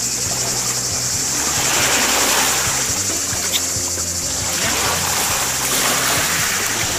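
Background music playing over the wash of small waves and shallow water, swelling and fading a few times as a person wades in the sea.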